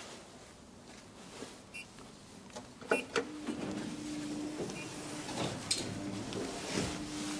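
KONE traction elevator (1998 installation): a sharp clunk about three seconds in as the car's sliding doors shut, followed by a steady hum of the elevator's machinery that carries on to the end.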